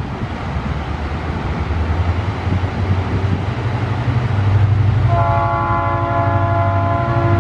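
Tasrail coal train's diesel locomotives approaching, a low engine drone growing louder. About five seconds in the horn sounds, a chord of several notes held steady, over the rush of water pouring over a weir.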